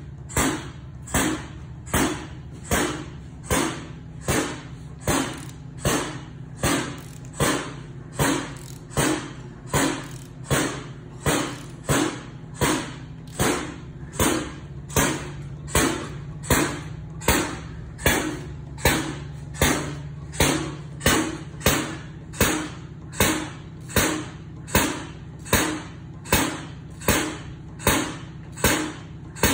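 Engine pre-lube machine pumping pressurised oil into a freshly built engine's oil system to prime it. It runs with a regular sharp stroke about three times every two seconds over a steady low hum.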